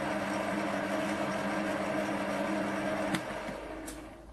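A machine running with a steady hum of several tones, which cuts off with a click about three seconds in and then dies away; a single short click follows near the end.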